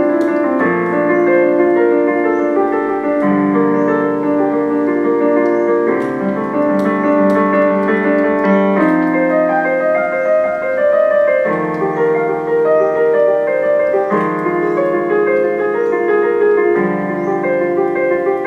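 Soundtrack music: piano or keyboard playing sustained chords that change every second or two.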